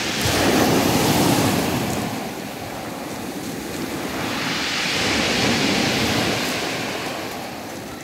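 Sea waves breaking on a pebble beach, their foam washing up over the stones. Two surges: a heavy one right at the start, then a second, hissier wash about five seconds in.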